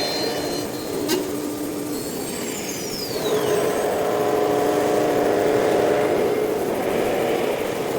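CNC nesting router running: spindle and machine noise with steady tones, a click about a second in, and a steadier, louder hum from about three seconds in.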